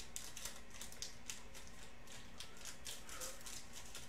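Foil wrapper of a Prizm football card pack crinkling faintly in the hands as it is pulled open, with many small crackling ticks.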